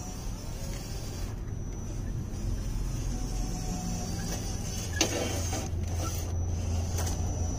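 Modified 370 electric motor and gear-reduced drivetrain of a 1:14 scale RC crawler truck whirring steadily as it crawls over rubble, with a thin high whine over a low hum. A single sharp knock about five seconds in.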